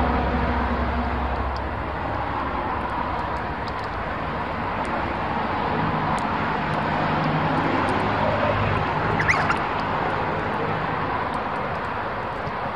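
Steady rush of road-traffic noise with a low engine hum that fades about two seconds in and returns more faintly later. A single short rising bird chirp about nine seconds in.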